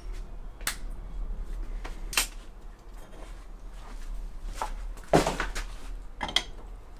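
Scattered light clinks and knocks of small hard objects being handled, about half a dozen over several seconds, the strongest about five seconds in, over a faint steady low hum.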